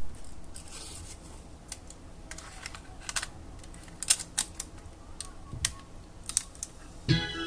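Scattered small plastic clicks and taps from handling a cassette Walkman, its case, buttons and switches, irregular and a few per second at most. Just before the end, music starts playing.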